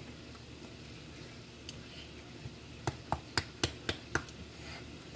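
A bottle of ranch dressing shaken hard upside down over a pan to empty it, giving six quick sharp knocks, about four a second, starting about three seconds in.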